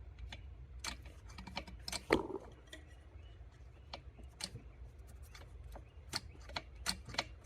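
Faint clicks and light metallic knocks of a Triumph 500 gearbox being shifted through its gears by hand, the selector mechanism clicking as each gear engages. One knock about two seconds in is louder than the rest.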